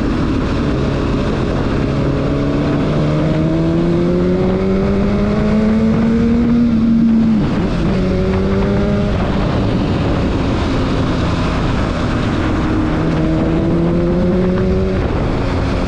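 Honda CBR1000RR's inline-four engine pulling hard through the gears, its pitch climbing for several seconds and then falling sharply at an upshift about seven seconds in, then climbing and falling twice more. A heavy rush of wind and road noise runs under it.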